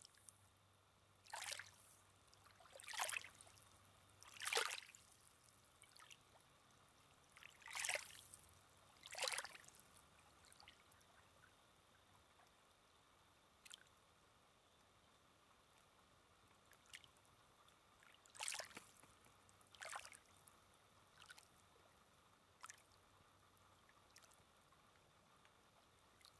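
Small waves lapping on a sandy lake shore: a run of soft splashes about every second and a half in the first ten seconds, then after a lull a few fainter ones.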